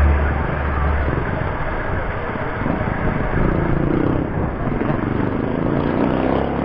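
Steady road traffic and wind noise while cycling along a road, with a deep rumble in the first second.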